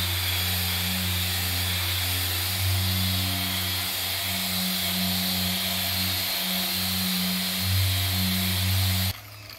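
Porter Cable random orbit sander with a foam polishing pad running steadily as it buffs finishing polish into a painted motorcycle gas tank. Soft background music plays under it, and both cut off suddenly about nine seconds in.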